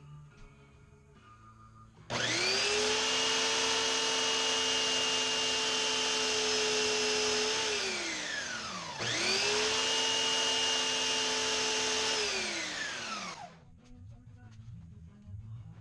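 Benchtop belt sander switched on with a steady motor whine and belt noise. After about five seconds it is switched off and coasts down with a falling whine. It is started again at once, runs about four more seconds, and coasts down again while a wooden file handle is shaped on it.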